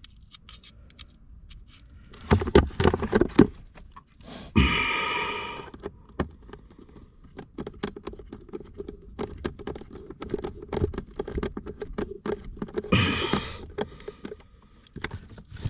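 Tools and parts being handled during a blower motor install: scattered clicks, knocks and scrapes, with two short whirring bursts, about five seconds in and again near thirteen seconds.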